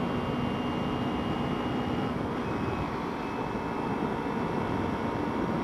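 Kawasaki Ninja sport motorcycle running steadily at highway speed, its engine blended with strong wind rush on the microphone.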